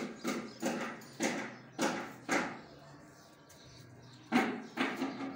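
Two tomcats squaring off: a run of short, repeated growling calls that slow and then stop, with three more calls near the end.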